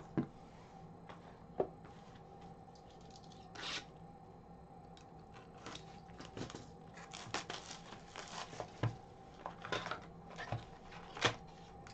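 A sealed 2020-21 Upper Deck Trilogy hockey card box being torn open by hand and its packs taken out: scattered short rips of wrapping and cardboard with rustles and taps, busiest in the second half, over a faint steady hum.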